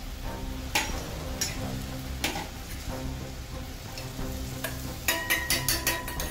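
Steel slotted spoon stirring frying masala and sauces in a steel kadhai, with sizzling and a few sharp scrapes against the pan. Near the end comes a quick run of metallic taps with a ringing tone.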